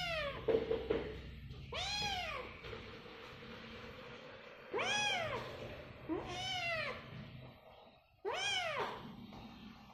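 Caged kitten meowing repeatedly: five high calls, each rising then falling in pitch, spaced one and a half to three seconds apart. A brief lower sound comes about half a second in.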